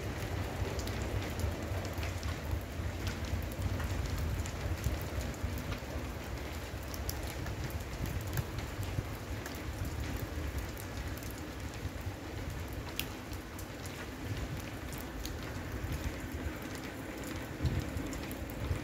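Steady rain falling, with many small drop ticks over a low, fluctuating rumble.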